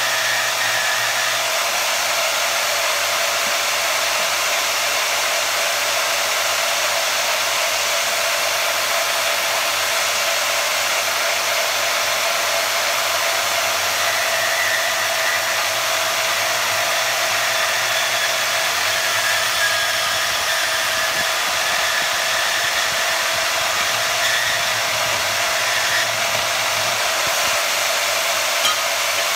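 Bauer 10-amp variable-speed portable bandsaw running steadily, its motor and blade making an even mechanical whir. A small block of wood and then a length of black pipe are fed into the blade.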